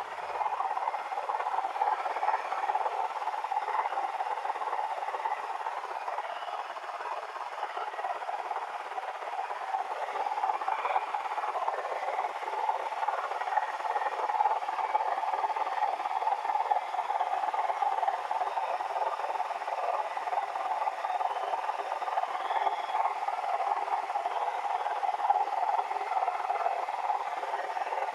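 Steady rattling noise from a Nissan C25 Serena: the abnormal noise that has suddenly appeared in the car.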